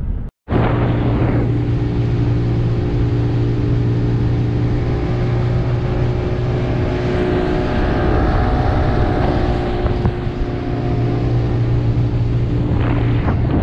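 Boat's outboard engine running at a steady speed as the boat moves across the water, a steady low drone with even overtones over a rushing noise of wind and water. It cuts in about half a second in.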